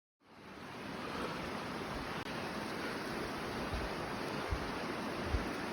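Steady rushing of falling water from a waterfall, fading in at the start. A few brief low thumps sound on the microphone.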